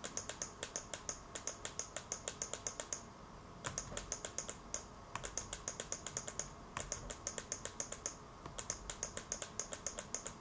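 Computer mouse button clicked rapidly and repeatedly, about five clicks a second, in runs broken by short pauses.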